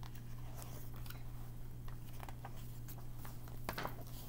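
Pages of a picture book being opened and handled, faint scattered paper rustles and soft taps over a steady low electrical hum.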